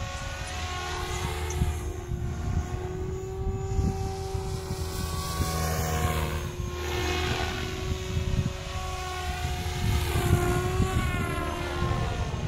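SAB Goblin 500 electric radio-controlled helicopter in flight: the whine of its motor and rotor blades, rising and falling in pitch as it manoeuvres overhead. A low, uneven rumble runs underneath.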